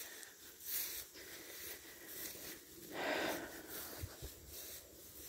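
A breathy exhale close to the microphone about three seconds in, over faint outdoor background noise, with a couple of soft low thumps just after.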